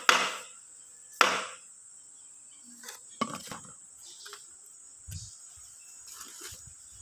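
Piston being knocked down through a ring compressor into a cylinder bore of a Perkins diesel engine block: two sharp knocks in the first second and a half, then light metallic clicks and clinks as the piston settles and the ring compressor comes off.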